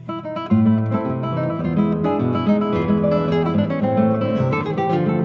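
Background music led by acoustic guitar, plucked and strummed in a quick rhythm, growing louder about half a second in.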